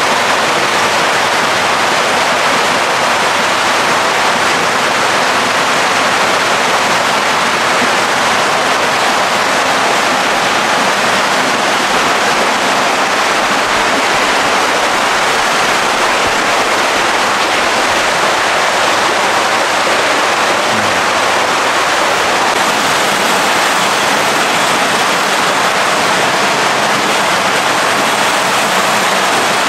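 Steady, loud rush of water splashing from inflow pipes into koi tanks, unchanging throughout.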